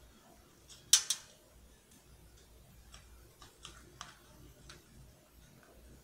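A cockatiel pecking at chopped vegetables in a plastic food dish: scattered small beak clicks at irregular intervals, with two much louder sharp clicks close together about a second in.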